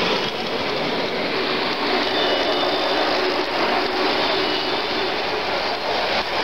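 Model trains running on the layout track: a steady rolling rumble of small wheels on rail, with a faint high squeal about two seconds in.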